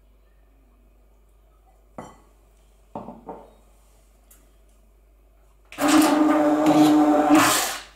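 A few light knocks and clinks against a glass bowl, then an electric hand blender starts about three-quarters of the way in, running loudly with a steady hum as it purées mashed potatoes, and stops just at the end.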